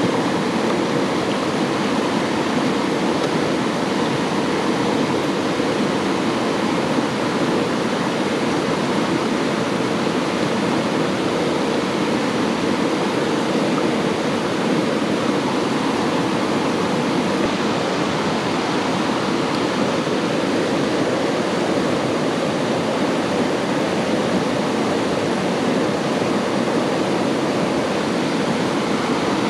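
Steady, loud rush of water, an even hiss with no let-up.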